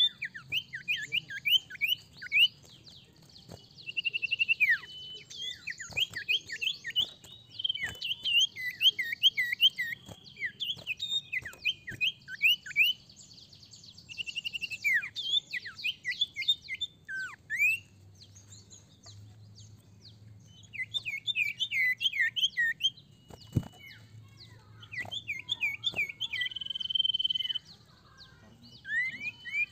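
Common iora (sirtu) calling in bouts of quick, downward-sliding whistled notes, with a few long level whistles and a buzzy trill between them and short pauses between the bouts. A few sharp clicks stand out among the calls.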